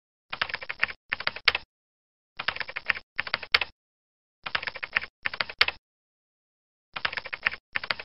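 Computer keyboard typing sound effect: short bursts of rapid key clicks, coming in pairs about every two seconds, with dead silence between them.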